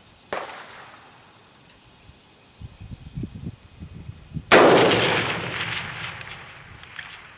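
A single loud rifle shot from a 1938 Persian Mauser, about four and a half seconds in, with a long echo dying away over about two seconds. A fainter sharp shot comes just after the start, and low thumps sound around three seconds in.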